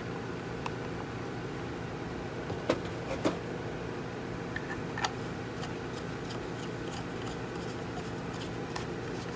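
A few sharp plastic-and-metal clicks and knocks from handling the random orbital polisher as its side handle is fitted, the two loudest about three seconds in and another about five seconds in, over a steady low hum.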